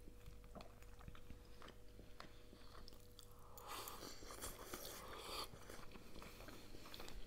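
Two people eating glass noodles with forks: quiet chewing with light clicks, then noodles slurped in about three and a half seconds in.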